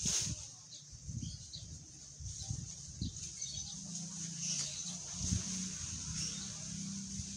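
Dwarf elephant grass (odot) leaves rustling as the stalks are cut and gathered by hand, with scattered low bumps and a few faint bird chirps over a steady high hiss; a low steady hum comes in about four seconds in.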